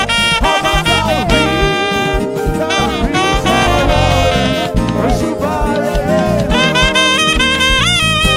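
Upbeat band music: a wind-instrument lead melody with sliding, held notes over a steady drum beat.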